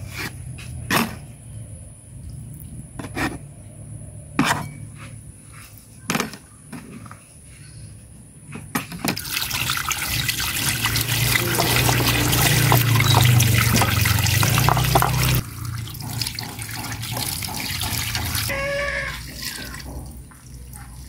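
A knife cuts through a block of tofu, tapping a plastic cutting board a few times. About nine seconds in, water pours from a hose and splashes over tofu pieces in a plate, loudest for a few seconds in the middle, then dies down and stops near the end.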